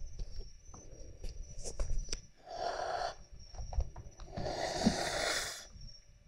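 Adult cat hissing twice at a kitten, a short hiss and then a longer one, as an angry warning to back off.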